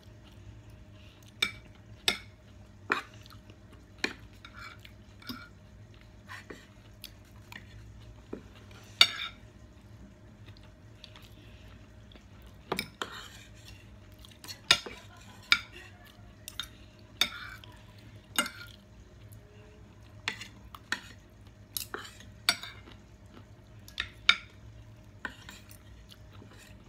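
Metal spoons and forks clinking and scraping against ceramic plates as two people eat, sharp clinks coming irregularly about once a second, over a faint steady hum.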